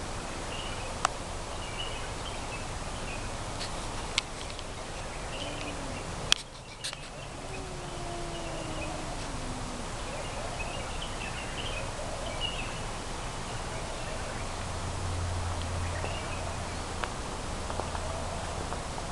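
A cat's low, drawn-out yowl that slowly falls in pitch, about eight seconds in. It sits over steady outdoor background noise with scattered faint bird chirps and a few sharp clicks.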